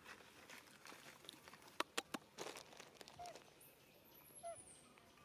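Dry leaf litter crackling and rustling: three sharp crackles close together about two seconds in, then a rustle. A few faint short chirps and a thin, high whistle sliding down in pitch come through.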